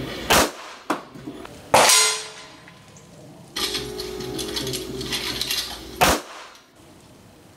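Three handgun shots fired inside a house, each a sharp crack with room echo, the second trailing off in a long ring; a smaller crack follows the first.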